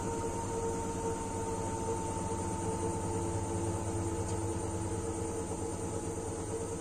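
Washing machine on its spin cycle: the drum and motor run with a steady drone and a high whine that sinks slightly in pitch.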